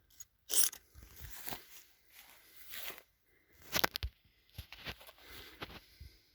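Rustling and crunching handling noise, with a few sharp knocks; the loudest comes about half a second in and another just before four seconds in.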